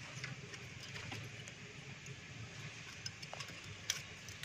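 Scattered light metallic clicks and taps of a steel feeler gauge against the rocker arms of a Mitsubishi 4G13 engine while the valve clearances are set, the sharpest about four seconds in. A low steady hum sits underneath.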